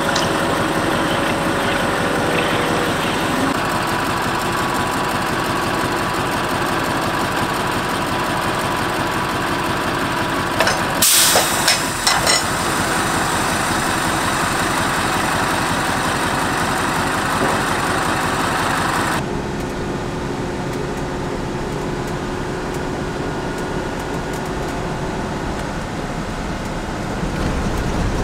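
An engine running steadily, with a brief clatter of sharp knocks about eleven seconds in. The sound changes abruptly about two-thirds of the way through, losing its higher sounds.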